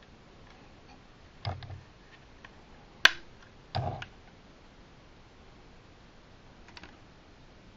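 Hard plastic parts of a Jazwares Micro Galaxy Squadron Inquisitor Transport Scythe toy ship clicking and knocking as it is handled: three knocks, the sharpest about three seconds in, then a few faint ticks near the end.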